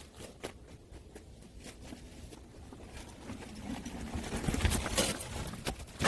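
Irregular light knocks and clicks, sparse at first and busier in the second half, ending on a sharper knock.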